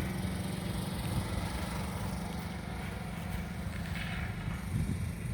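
Heavy low bass from a car's sound system playing music, heard mainly as a steady low rumble with the higher parts faint.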